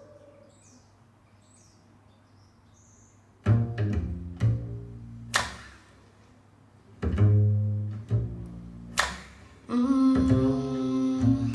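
Recorded music played over hi-fi loudspeakers. After a few seconds of quiet between tracks, a new acoustic song starts with deep string-bass notes and sharp percussive clicks.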